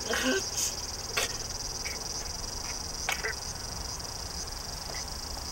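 Steady high-pitched chorus of insects buzzing, with a few short knocks and scrapes about a second in and again about three seconds in.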